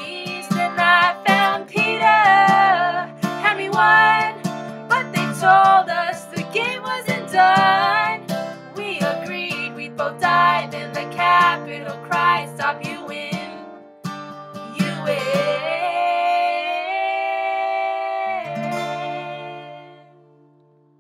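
The closing bars of a pop song: a woman's voice singing runs over guitar accompaniment, ending on one long held note that fades out near the end.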